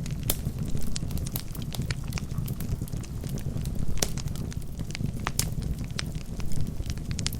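Wood fire burning in a fireplace: a steady low rumble of the flames with irregular sharp crackles and pops from the logs, a few of them louder, about a third of a second in and about four seconds in.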